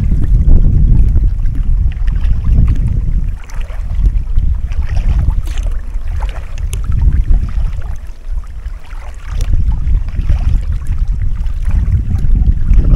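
Wind buffeting an action camera's microphone on a kayak: a loud low rumble that rises and falls with the gusts, over faint splashes from paddle strokes.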